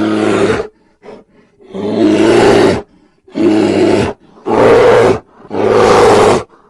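A large animal giving a series of loud, harsh, low-pitched calls, five in a row, each under a second long and about a second apart.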